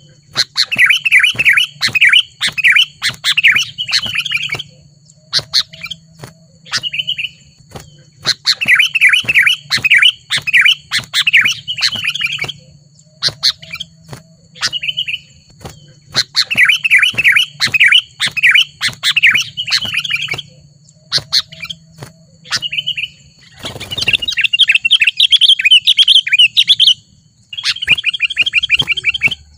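Sooty-headed bulbul (kutilang) singing loudly: phrases of quick, bubbling chirps about four seconds long, with single notes between them, turning into a faster, continuous chatter about three-quarters of the way through. A faint steady high whine runs beneath.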